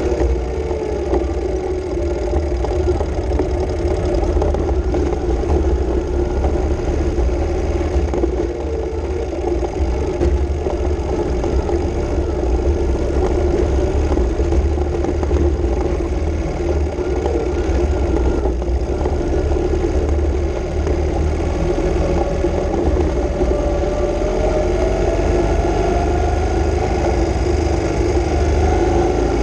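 Ural sidecar motorcycle's flat-twin engine running steadily under way, its pitch rising slowly in the last third as it picks up speed. Wind rumbles on the microphone underneath.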